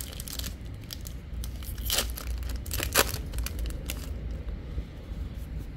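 Crinkling of a trading card booster pack wrapper and cards being handled, with a scatter of sharp snaps and clicks; the loudest come about two and three seconds in.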